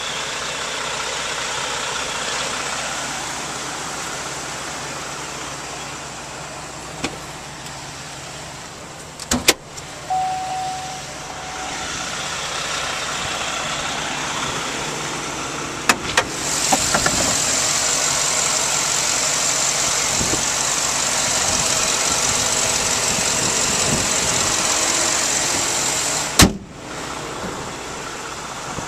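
Steady motor-vehicle noise, with a few sharp clicks and knocks. A louder steady hiss sets in a little past halfway and cuts off suddenly with a click near the end.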